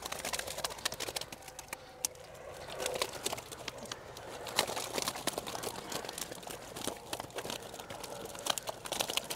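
Wet nylon mesh of a keepnet and a weigh sling being handled as fish are tipped from one into the other: rustling and crinkling with many small, irregular clicks and crackles.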